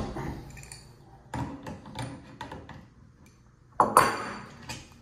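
Light metallic clicks and clinks as a screwdriver is turned through the ports of a hybrid muzzle brake to unscrew it from a Ruger Precision Rifle's barrel. A louder, ringing metal clack just before four seconds in as a part is set down on the wooden tabletop.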